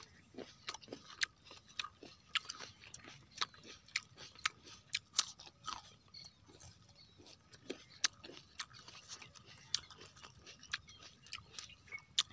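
Crunchy food being chewed: irregular crisp crunches, a few a second.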